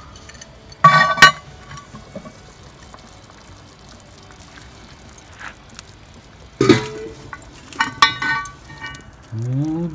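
Metal pot lid and grill hardware being handled, with sharp clanks that ring briefly: a pair about a second in, another near the middle, and a quick run of clinks a little later. A short vocal sound near the end.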